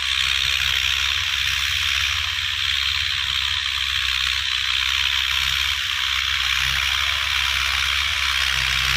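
Massey Ferguson 185 tractor's diesel engine running steadily as it pulls a tiller through the field: a low rumble under a constant hiss.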